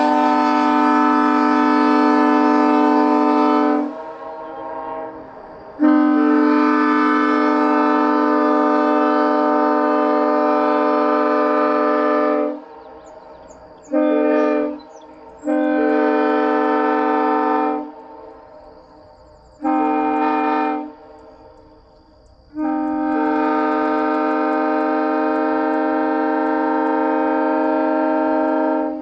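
Nathan Airchime K3LP three-chime train horn (bells 1L, 1 and 3B) sounding a steady chord in six blasts, long and short, each cutting off cleanly.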